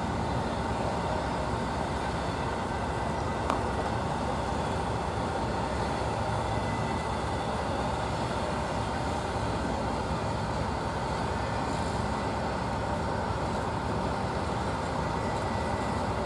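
Steady running engine noise at an even level, with a faint constant whine and a single sharp click about three and a half seconds in.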